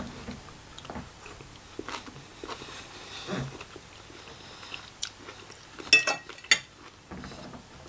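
A person chewing a mouthful of prawn and vegetable stir fry, with soft wet mouth sounds. A few sharp clicks come about six seconds in.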